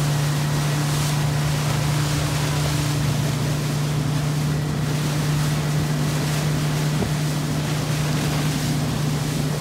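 Motorboat engine running at a steady cruising speed, a constant low hum, over an even rush of water and wind noise.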